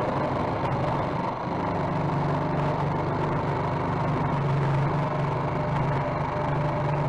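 Electric jigsaw running steadily as it cuts a long straight line through a plywood sheet.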